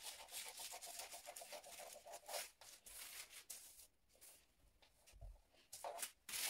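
Scissors cutting through pattern paper: a faint, quick run of snipping and paper crackle that dies away about two and a half seconds in, with a short burst of cutting again near the end.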